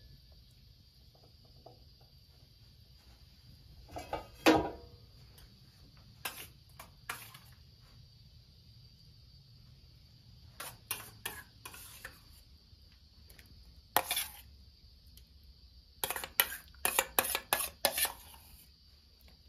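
Metal cookware clinking and clattering: a steel pot lid and a metal spoon knocking and scraping against a steel bowl and pot. One loud clank comes about four seconds in, and a quick run of clinks comes near the end.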